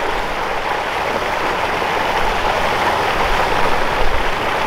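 Steady rush of splashing, churning pool water close by.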